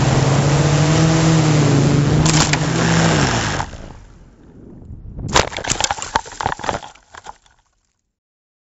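Quadcopter's four SunnySky 2212 brushless motors and 9x5 propellers buzzing at flight power, their pitch wavering, then throttling away about three and a half seconds in. About five seconds in come a run of sharp thuds, cracks and rattles as the quadcopter hits the ground and tumbles.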